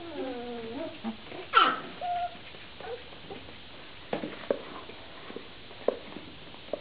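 Vizsla puppy whining with a wavering pitch, then a loud, sharp yelp about one and a half seconds in and a brief squeak. A few soft knocks follow.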